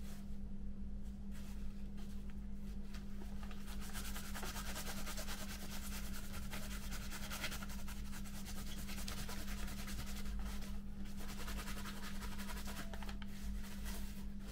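Scratchy rubbing and rustling of plastic model parts being handled on newspaper, heavier from about a second and a half in until about ten seconds and again near the end, over a steady low hum.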